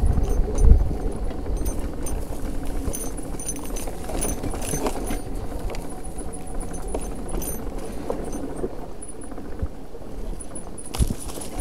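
Zero FX electric enduro motorcycle ridden over a rough dirt trail: frequent light knocks and rattles from the bike over the bumps, over a steady low rumble, with a faint high whine that comes and goes.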